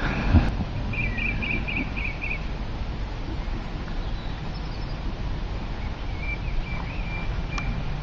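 Songbirds chirping in a garden: a quick run of high chirps about a second in, then more calls near the end, over a steady low rumble, with a single knock just after the start.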